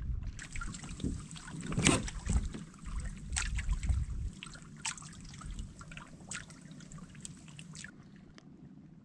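Water lapping and splashing in small irregular taps against a kayak's hull, with wind rumbling on the microphone until about halfway through.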